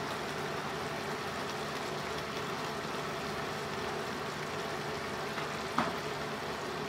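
Pan of tomatoes, peppers, mushrooms and eggs simmering on the stove with a steady, even sizzle, and one soft tap near the end.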